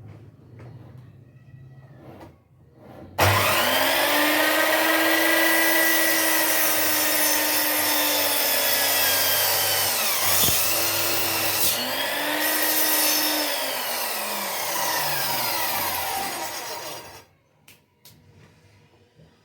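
An electric power tool switched on about three seconds in and running at a steady high speed, its pitch dipping briefly twice, then winding down in pitch and stopping a couple of seconds before the end.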